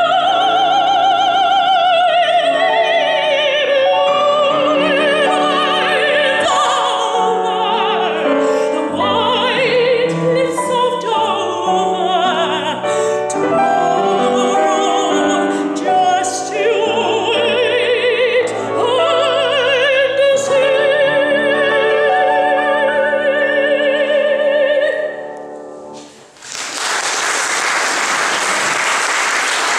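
Classically trained female voice singing with a wide vibrato over grand piano accompaniment, closing on a long held note. About twenty-six seconds in the music stops and an audience applauds.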